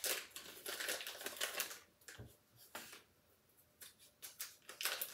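Paper wrappers being peeled off sticks of butter: crackly rustling and crinkling in two spells, with a quieter gap in the middle.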